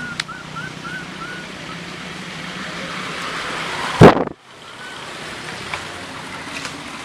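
Steady outdoor background hiss with a run of short, high, arched squeaks, about three a second, in the first two seconds. About four seconds in comes a single loud, brief rush of noise that cuts off suddenly.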